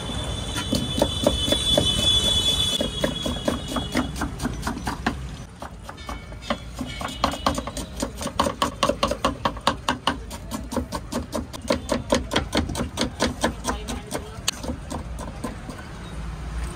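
Kitchen knife rapidly chopping fresh coriander leaves on a wooden cutting board, in quick, even strokes several times a second.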